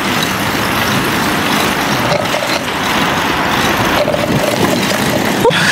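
Steady rushing wind noise on the microphone of a camera carried on a moving bicycle.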